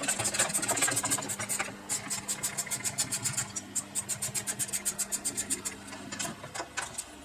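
Rapid, even ratcheting clicks, about seven or eight a second, over a steady low hum, stopping shortly before the end: a ratcheting tool turning the fasteners that hold the chainsaw's carburetor and adapter.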